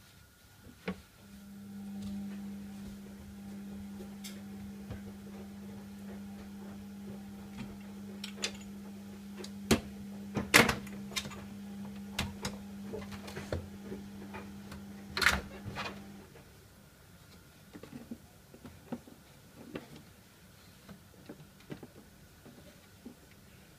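KDK 15WUE window exhaust fan's motor switched on, humming steadily for about fifteen seconds, then cutting off. Several sharp clicks and knocks sound over the hum in its second half, the loudest two near the middle.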